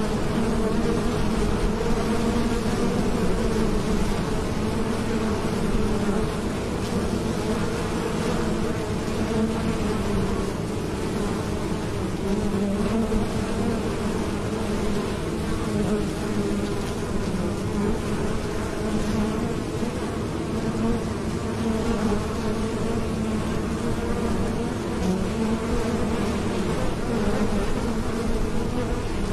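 A crowd of honeybees buzzing at the entrance of a hive as they fly in and out: a steady, unbroken hum of many wingbeats.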